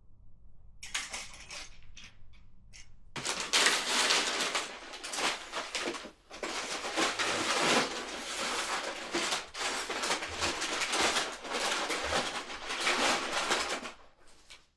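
Handling noise: a dense, irregular run of small hard clicks, clatters and rustles, sparse at first and then continuous from about three seconds in, stopping just before the end.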